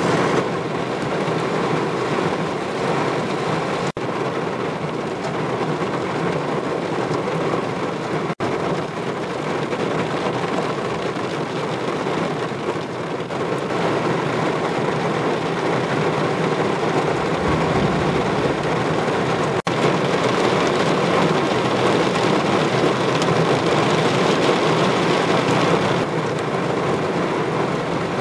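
Muddy floodwater cascading over a stepped weir, a steady continuous rush of falling and churning water.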